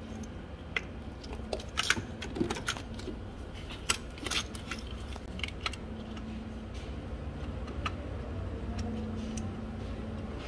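Hands handling plastic hoses and connectors in a car engine bay: a scatter of light clicks and rattles, thickest in the first half, as a new purge-valve hose is worked onto its tube. Under it is a low steady hum.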